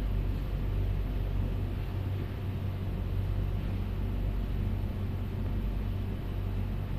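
Steady low hum and rumble with no distinct events, holding an even level throughout.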